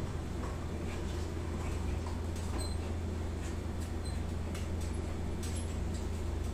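A boning knife cutting and scraping through a pork leg along the bone, heard as faint scattered clicks and scrapes over a steady low machine hum.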